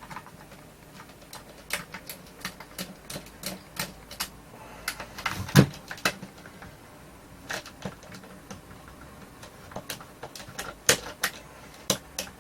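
Screwdriver and hands working screws out of a plastic speaker housing: scattered, irregular clicks and taps, with one louder knock about halfway through.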